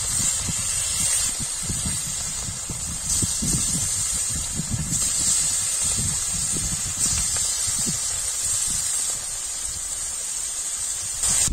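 Spice-rubbed tilapia pieces sizzling in hot oil in an iron karahi, the sizzle flaring up each time another piece is laid in, several times over. An uneven low rumble runs underneath.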